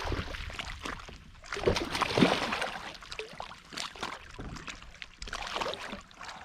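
Water splashing and sloshing in irregular bursts beside a kayak as a big bass is landed, loudest about two seconds in.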